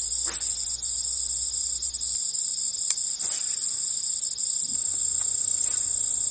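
Steady, high-pitched chorus of insects, a continuous shrill drone that neither breaks nor changes.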